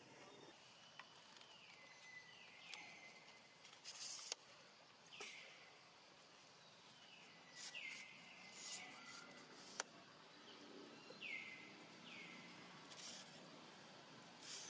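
Faint, high-pitched animal calls, each sliding down in pitch and levelling off, repeated about ten times in irregular groups over a soft outdoor background hiss. Two sharp clicks stand out, one about four seconds in and one near ten seconds.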